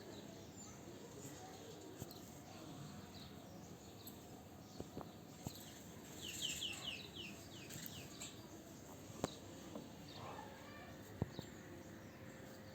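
Faint bird chirps, including a quick run of short falling chirps about halfway through, over a quiet background. Half a dozen single sharp clicks are scattered through.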